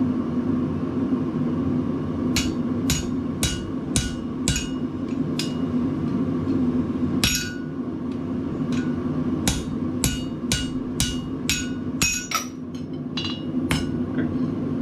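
Hand hammer striking a steel drift driven through a red-hot bottle-opener blank on the anvil to enlarge the punched hole. The blows come in runs of about two a second, each with a short metallic ring. A steady low rumble runs underneath.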